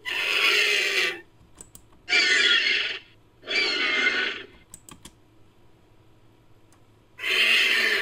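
Made-up pterosaur screech sound effect built from vulture calls and pterosaur sound clips: four harsh, noisy screeches of about a second each, the last one near the end, with a few faint clicks between them.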